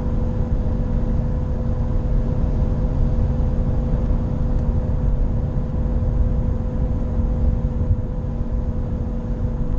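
Nissan Qashqai J11 at about 100 km/h with a loud, steady droning hum over low road rumble. The owner takes the hum for a worn wheel bearing.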